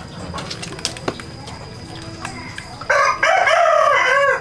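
A rooster crows once near the end, a single call of about a second and a half. A few light knocks come before it.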